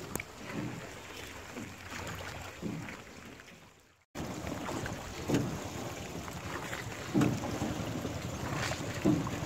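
Rowboat oars working the water in a steady stroke about every two seconds, over wind noise on the microphone. The sound fades and drops out briefly about four seconds in, then cuts back in.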